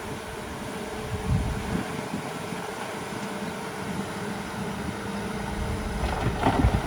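Heavy diesel engine of earthmoving machinery running steadily, getting louder near the end with a few sharp knocks.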